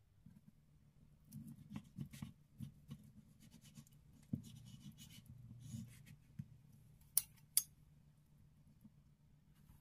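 Knife sawing through a crisp, breaded fried zucchini slice on a wooden cutting board: a run of crunchy, scratchy strokes, then softer scraping. Two sharp clicks near the end.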